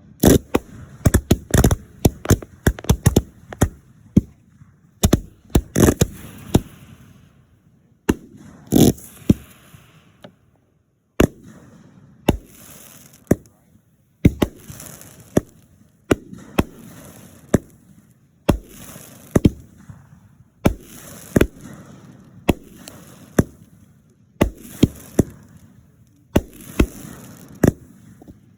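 Fireworks exploding: a rapid, irregular volley of sharp bangs for the first several seconds, then single bangs about once a second, each trailed by a short crackling hiss.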